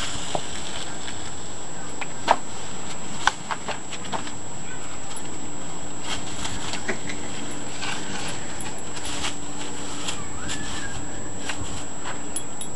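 Push broom scraping and rustling dry leaves on concrete while a Chesapeake Bay Retriever puppy bites and tugs at its bristles, with a few sharp knocks, two of them louder, a couple of seconds in.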